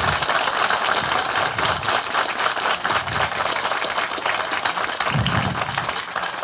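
Wedding guests applauding, a crowd of hands clapping together, the clapping thinning out and dying away near the end.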